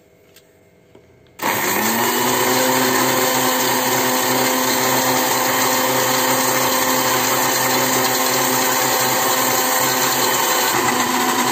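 Electric juicer-mixer-blender switched on about a second and a half in, its motor spinning up quickly and then running steadily and loudly. It is blending an egg, garlic and milk sauce while sunflower oil is poured in to thicken it into a mayonnaise-style dressing.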